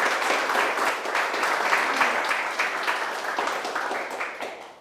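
Small audience applauding at the end of a talk, a dense patter of many hands clapping that dies away near the end.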